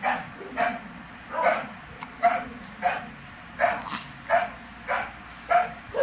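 A dog barking over and over at an even pace, about ten short barks.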